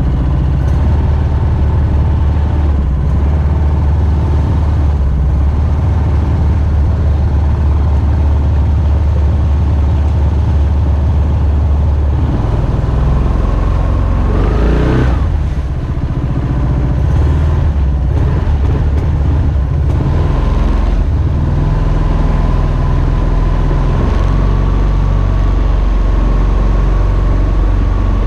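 Mokai jet boat's single-cylinder Subaru EX21 engine running steadily under way, its pitch shifting briefly about halfway through.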